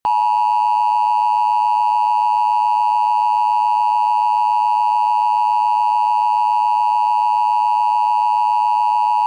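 Emergency alert attention tone: a loud, steady electronic tone near 1 kHz that holds without change, the signal that a warning message is about to follow.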